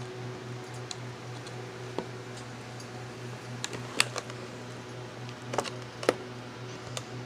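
Wire cutters snipping the clear plastic ties that hold a toy figure in its packaging: about four sharp clicks spread over a few seconds, over a steady low hum.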